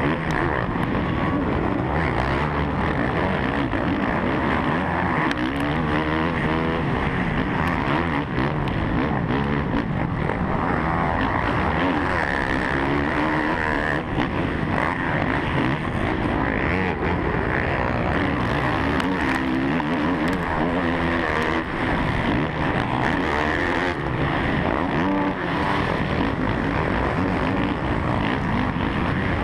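450-class motocross bike engine at race pace, heard close from the rider's helmet, revving hard and falling back repeatedly through gear changes and corners, with other bikes' engines close by.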